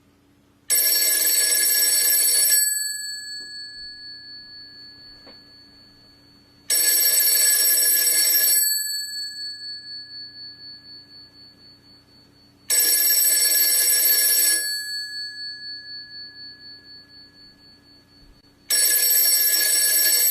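Telephone bell ringing four times, about every six seconds. Each ring lasts about two seconds and then fades out with a wavering tail; the fourth ring is cut off.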